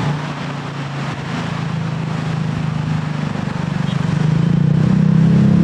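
Diesel locomotive engine running as a passenger train approaches head-on, a steady low drone that grows louder from about four seconds in.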